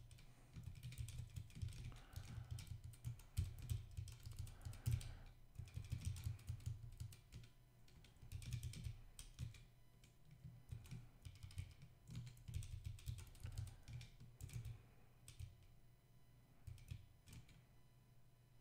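Typing on a computer keyboard: quick runs of keystrokes with short pauses between them, thinning out near the end.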